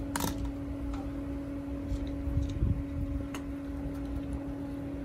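Small clicks and handling sounds of fingers working plastic wire nuts onto low-voltage wire leads, with a low thump about two and a half seconds in, over a steady low hum.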